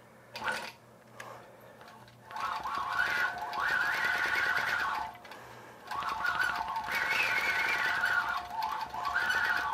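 Longarm quilting machine stitching in two runs of about three seconds each with a short stop between; its whine climbs in pitch as each run gets going and drops as it slows. A click comes about half a second in.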